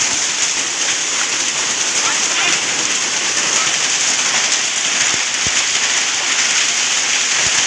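Hail and rain pelting down steadily, a dense even hiss of stones and drops striking surfaces, with a couple of sharper knocks from single hailstones late on.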